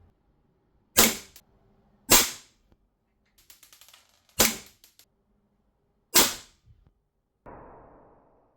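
Green-gas blowback airsoft Colt 1911 pistol firing four sharp shots, irregularly spaced one to two seconds apart, with faint clicking between the second and third. Near the end comes a softer hiss that fades away.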